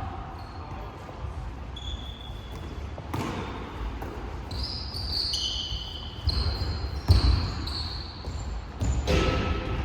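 Basketball game on a court: the ball bouncing with several sharp thuds, and short high sneaker squeaks in the middle of the stretch.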